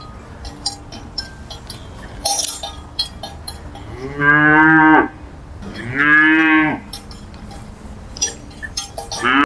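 A cow mooing twice, two long calls each about a second long, about four and six seconds in. Scattered light clinks and knocks sound between the calls.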